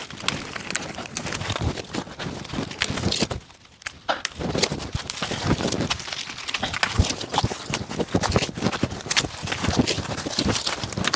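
Persimmon twigs being snapped off by hand among rustling leaves: a run of irregular sharp snaps and cracks, with a short lull about three and a half seconds in.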